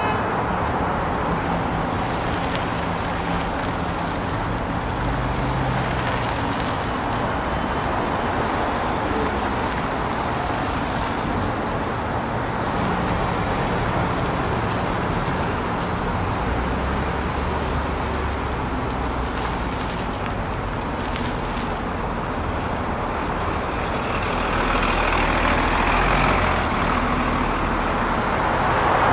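Street traffic at a city intersection: a steady mix of car and bus engine rumble and tyre noise, swelling louder near the end.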